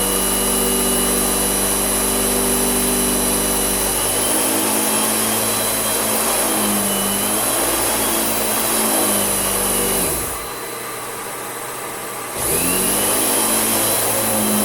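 Hoover WindTunnel S3670 bagged canister vacuum running, a steady motor drone with a high whine whose pitch wavers as it works. About ten seconds in, the motor sound drops and falls in pitch. About two seconds later it winds back up to full speed.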